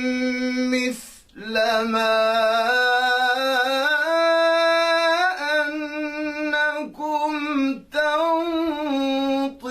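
A male reciter chanting the Quran in long, melodic held notes, the pitch climbing to a higher sustained note in the middle and falling back, with short breaks for breath between phrases. The voice is dry, with no added echo.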